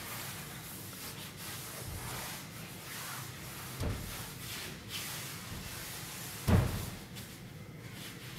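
Steady low hiss with two dull thuds, a soft one and then, about two and a half seconds later, a louder one.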